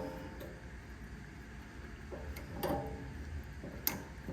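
A few light metallic clicks and a short ringing clink as a small tool works the throttle linkage piece off an old GY6-type carburetor.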